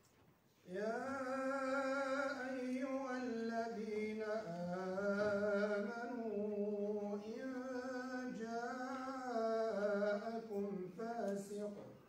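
A man reciting the Quran in chanted tajweed style into a microphone, holding long notes with ornamented turns in pitch and short pauses between phrases. It begins about a second in.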